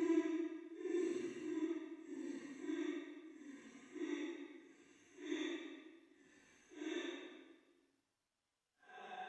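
A woman weeping in breathy, sighing sobs that grow fainter and further apart, then stop about eight seconds in. After a moment of silence, a steady droning tone starts near the end.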